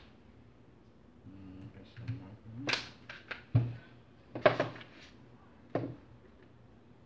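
Sharp metal clicks and knocks from the parts of a Mossberg Maverick 88 pump-action shotgun being handled as its receiver is stripped. There are about half a dozen separate clicks, bunched between about two and a half and six seconds in.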